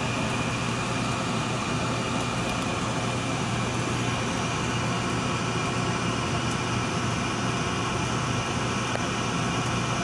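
Gas furnace running: a steady mechanical hum from the draft inducer motor and burners, a low drone with a faint high whine over it.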